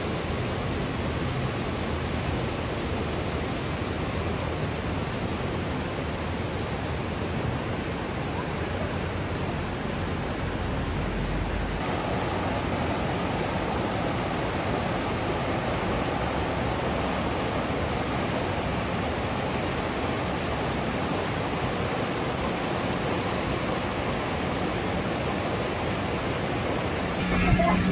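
River rapids: whitewater rushing steadily over rocks, its sound changing about halfway through. Music comes in at the very end.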